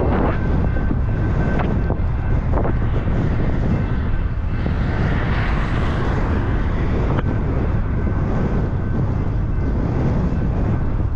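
Wind buffeting the microphone of a camera on a moving bicycle: a steady low rumble, broken by a few sharp clicks.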